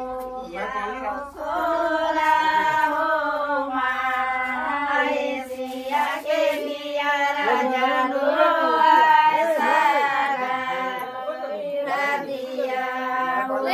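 A group of women singing a devotional song together, unaccompanied, with long held notes.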